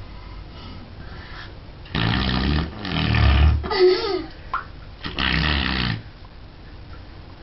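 Fart noises made with a plastic cup in bathwater: three low buzzing blasts, about two, three and five seconds in, with a short wavering squeak between the second and third.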